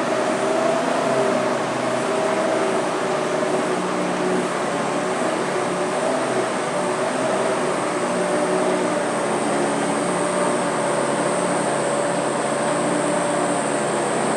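Engine of an Army Duck amphibious tour vehicle running steadily under way, a steady drone. A thin high whine grows stronger about halfway through.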